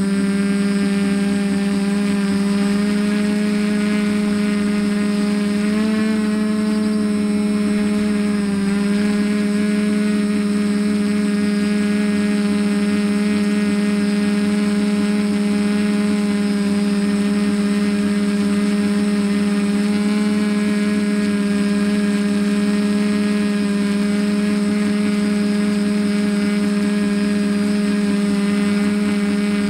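TBS Discovery quadcopter's Sunnysky brushless motors spinning 10x5 carbon props in a hover, a loud steady hum. The pitch rises and dips briefly about six seconds in and again near nine seconds as the throttle is adjusted.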